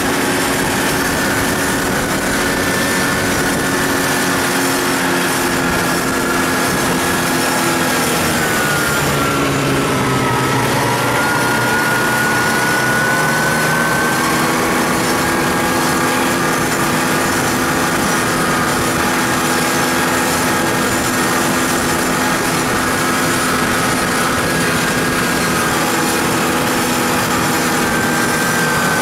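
Snowmobile engine running steadily while under way. Its pitch dips about eight seconds in as the revs drop, then climbs back a few seconds later.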